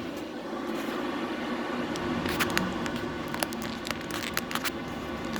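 A run of light, sharp clicks and taps from handling small parts, over a steady background hum.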